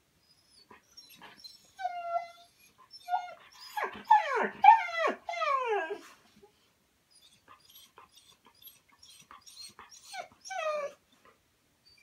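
Siberian husky whining and whimpering: thin high whines at first, then a run of louder falling cries about four to six seconds in, and one more falling cry near the end.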